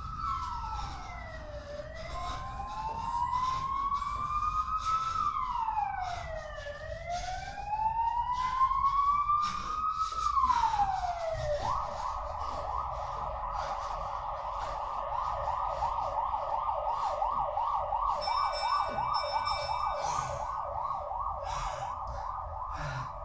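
Emergency vehicle siren in slow wails, rising and falling about every two and a half seconds, then switching to a fast yelp about halfway through. Light irregular taps of feet on the floor run underneath.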